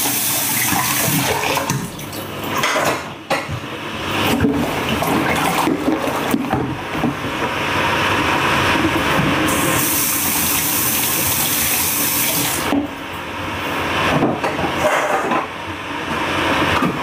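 A steady rush of water, louder and hissier for a few seconds in the middle, with a few knocks of a knife on a wooden chopping board.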